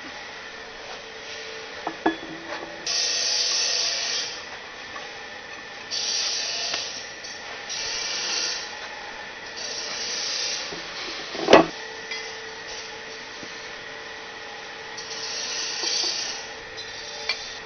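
Metal parts of a flat-die pellet mill being handled and fitted: several short stretches of scraping and rubbing, a couple of light knocks early on and one sharp metal knock about two-thirds of the way through.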